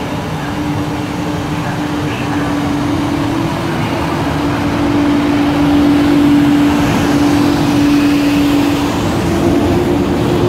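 EP09 electric locomotive passing close by along a station platform with a steady whine that steps up in pitch twice as it picks up speed, over the rumble of its wheels. It is loudest as the locomotive passes, about six seconds in, then the coaches roll by.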